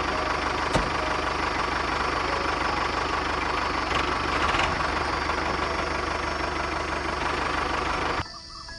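Tractor engine idling with an even, knocking throb, laid over the pictures as a sound effect; it cuts off abruptly near the end.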